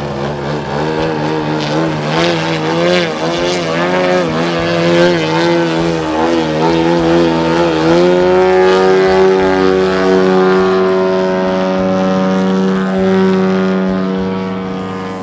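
Engine and propeller of a large radio-controlled Yak 55M aerobatic model plane hanging nose-up, its pitch wavering up and down. About eight seconds in, the note rises a little and holds steady as the plane climbs away vertically.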